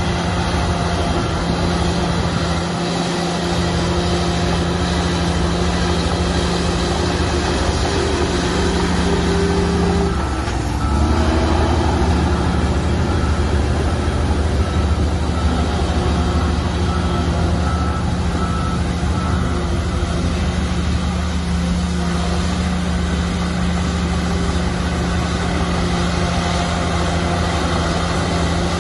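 Shantui bulldozer's diesel engine running steadily under work, its pitch shifting about ten seconds in. A repeating high beep sounds over it through roughly the first two-thirds.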